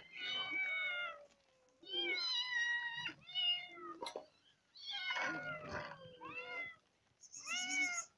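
Hungry kittens and cats meowing over and over, about six calls that rise and fall in pitch, some overlapping, as they beg for food. A single sharp click about four seconds in.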